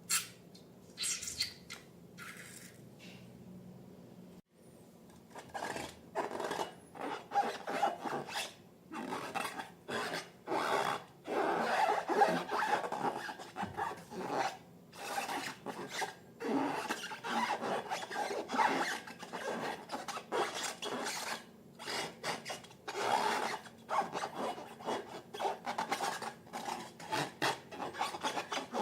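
Slime being squeezed and worked by hand: a few short clicks at first, then from about five seconds in a dense run of short, irregular sticky rubbing noises.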